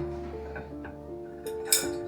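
Background piano music with held notes, and one sharp clink of tableware about three quarters of the way in.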